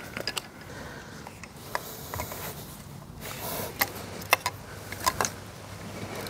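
Scattered light clicks and knocks of tools and metal bike parts being handled during assembly of an electric bike.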